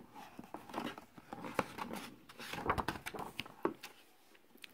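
Page of a picture book being turned by hand: faint paper rustling with a few light taps and rubs.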